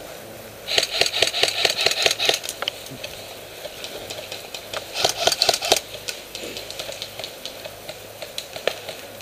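Airsoft electric rifle firing on full auto in two bursts of rapid clicking: a longer one of about two seconds, starting just under a second in, and a shorter one about five seconds in.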